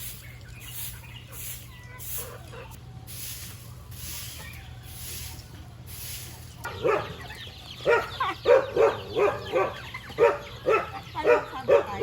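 A dog barking in quick short yips, about two a second, starting about seven seconds in; before that only faint background noise.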